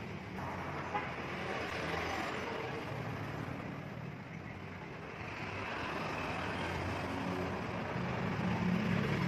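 Steady engine rumble with background noise, growing louder near the end.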